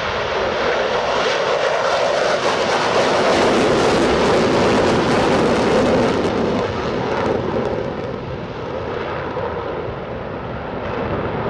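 Jet noise of a MiG-31 interceptor's twin Soloviev D-30F6 turbofans on full afterburner as it climbs away after takeoff: a loud, steady rushing that swells toward the middle and eases a little as the jet moves off.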